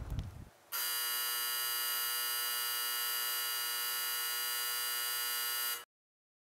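A steady electric hum, thick with high overtones, that starts abruptly under a second in and cuts off abruptly near the end into dead silence.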